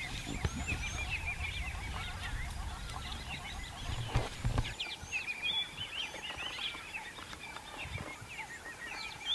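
A chorus of birds calling in the bush: many short, high, repeated chirps and whistles throughout. A low rumble underneath stops about halfway through.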